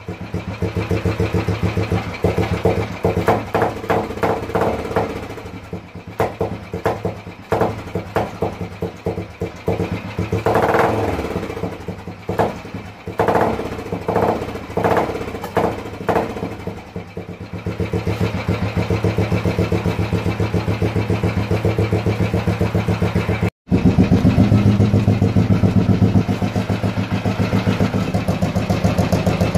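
1984 Royal Enfield Bullet's single-cylinder engine running. For the first half the throttle is blipped, so the exhaust beat rises and falls unevenly. After that it settles into a steady, fast beat, which is louder and closer after a brief dropout near the end.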